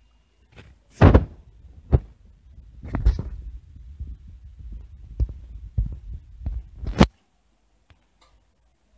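Handling noise from a handheld tablet as it is moved: a run of dull knocks and thumps, about eight in all, with a low rumble between them, starting about a second in and stopping about seven seconds in.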